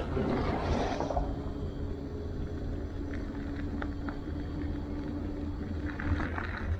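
Electric bike rolling along a gravel trail: a steady low rumble of tyres on gravel and wind on the microphone, with a steady hum from the motor and a few sharp ticks of stones. A brief rush of louder noise in the first second.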